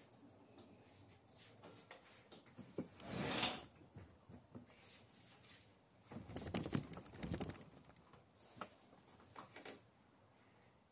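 Handling noise from hands working a dirt bike's brake cable: scattered light clicks and knocks, with two longer rustling, scraping swells about three seconds in and again about six seconds in.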